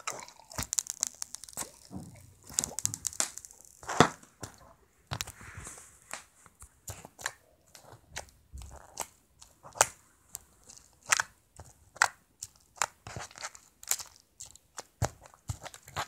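Glittery homemade slime being pressed, poked and squeezed by fingers, giving irregular sharp clicks and pops, several a second.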